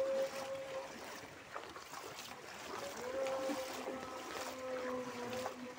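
Floodwater rushing across a path as a steady hiss of water, with scattered small clicks and a steady hum running through it.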